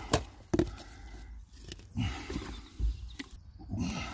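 A few sharp clicks and knocks of containers being handled while a batch of fibreglass resin is measured out, with rustling and low muffled sounds in between.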